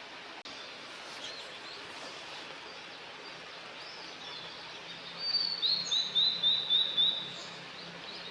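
A bird sings a quick run of about six repeated short, clear notes a little past halfway, over steady outdoor background noise with a few faint chirps from other birds.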